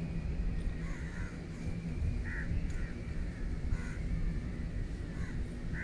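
Crows cawing several times in short calls, over a steady low rumble.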